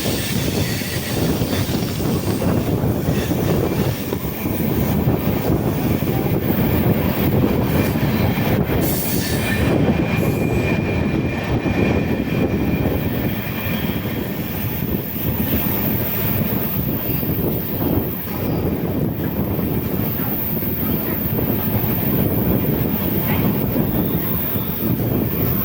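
Passenger train running at speed, heard from aboard: a steady rumble of wheels on the rails, with a faint thin wheel squeal in the middle.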